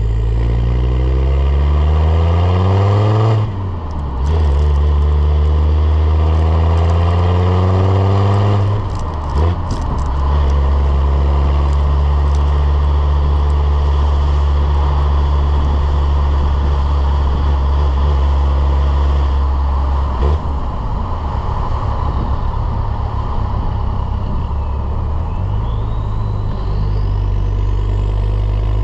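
Land Rover Defender Td5's five-cylinder turbodiesel, tuned to about 200 hp, accelerating through the gears: its pitch climbs, drops at an upshift about three seconds in, climbs again and drops at a second upshift near nine seconds. It then runs at a steady cruise.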